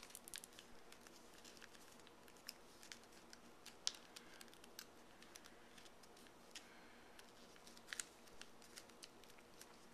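Faint crackles and ticks of paper being folded and creased by hand: an origami flapping bird's wing being folded down. Scattered small clicks, with two sharper ones about four and eight seconds in.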